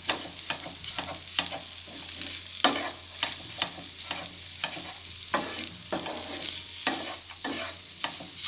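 A spatula stirring and scraping a pan of frying chopped egg with spices, over a steady sizzle of hot oil. The scraping strokes come irregularly, about one or two a second.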